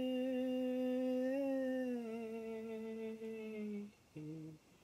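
A man singing unaccompanied, holding one long wordless note that steps down slightly about two seconds in and stops near four seconds, then a short lower note near the end.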